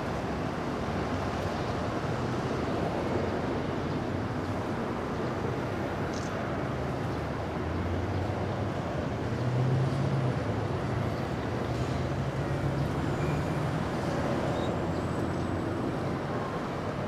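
A motorcade of cars, SUVs and minibuses driving past, with steady engine and tyre noise. A low engine note swells louder about nine seconds in as one vehicle goes by, then eases off.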